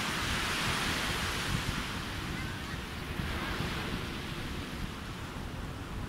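Small sea waves breaking and washing up a beach: a hiss of surf that swells at the start and ebbs away about halfway through. A low wind rumble on the phone's microphone runs underneath.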